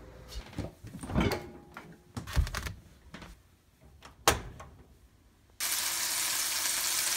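Scattered knocks and handling clicks, with a sharp click about four seconds in as an electric stove's control knob is turned. Then, for the last second and a half, a burger patty sizzles steadily in a frying pan.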